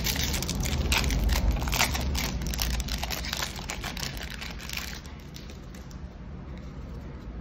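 Foil booster-pack wrapper crinkling and crumpling in the hands as it is torn open and pulled off the trading cards, a dense crackle that dies down about five seconds in to the fainter handling of the cards.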